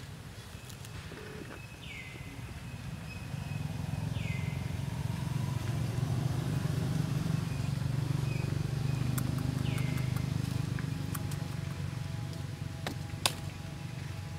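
A low engine drone, as of a passing vehicle, grows louder over several seconds and then slowly fades. Three short high calls sliding down in pitch sound over it, and a single sharp click comes near the end.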